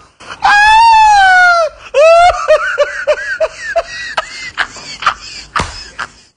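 A high voice gives a long wailing cry, then breaks into a run of short laughs, about four a second, followed by scattered short sharp sounds.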